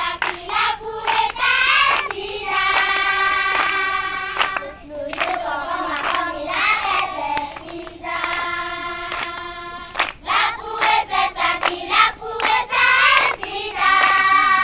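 A group of children singing together, a song with several long held notes, with scattered hand claps.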